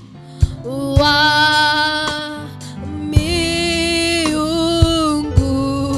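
Live gospel worship song: a woman leads the singing through a microphone, holding long sung notes ("O God of gods, you are exalted"), backed by a band with drum hits.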